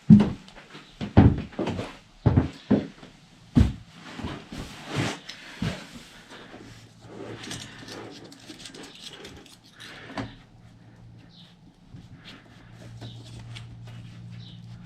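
Hand tools clicking and knocking against metal on a small scooter engine while the valve clearance is checked and set. The sharp knocks come in the first six seconds, and a faint steady hum follows.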